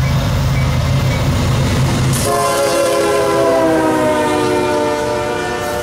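CSX GE ES40DC diesel locomotives passing at speed with a low engine rumble. About two seconds in, the lead unit's air horn sounds one long chord, its pitch dropping as the locomotive goes by.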